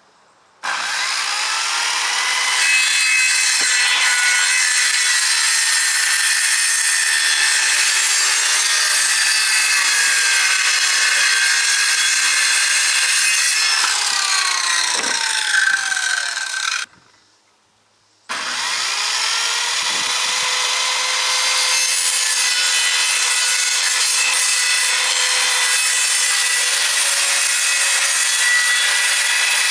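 Power saw cutting through plywood, a steady rasping cut with a motor whine. It cuts off sharply just past the middle and starts again about a second and a half later.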